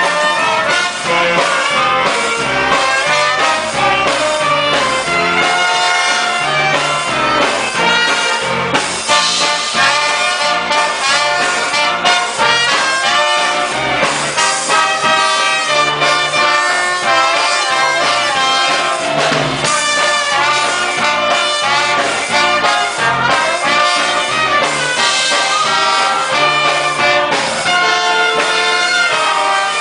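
Orchestra playing an instrumental Christmas medley, violins together with brass.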